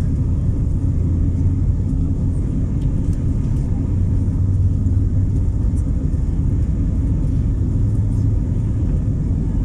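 Airbus A320neo's engines at takeoff thrust and the wheels rumbling over the runway during the takeoff roll, heard inside the cabin: a loud, steady, deep rumble.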